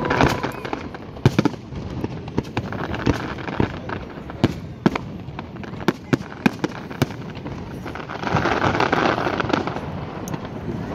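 Fireworks going off: a string of separate sharp bangs at irregular intervals, with a louder, denser stretch about eight seconds in.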